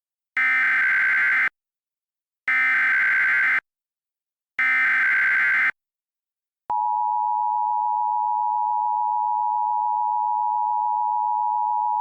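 Emergency Alert System SAME header: three identical buzzy digital data bursts of about a second each, two seconds apart. After a short gap, a single steady alert tone near 1 kHz starts and holds, the warning alarm that comes before a tornado warning is read out.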